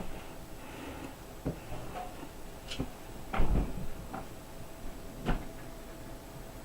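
Irregular light knocks and clicks from laptop parts and tools being handled on a work surface, about five scattered over several seconds, the loudest about three and a half seconds in.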